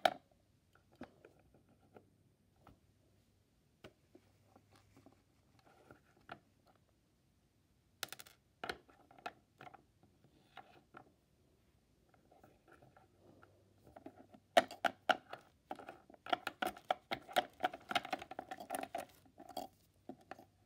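Small plastic toy figures being picked up, moved and set down on a hard surface by hand: scattered light clicks and taps, with a busier run of tapping and handling in the last few seconds.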